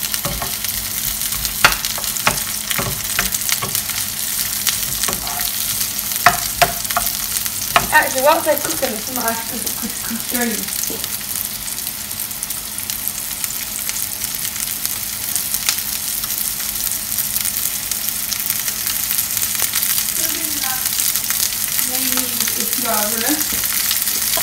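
Sliced mushrooms sizzling in hot oil in a frying pan on a gas hob. They are stirred with a wooden spoon during the first few seconds, with a few sharp clicks of the spoon against the pan. After that they sizzle steadily.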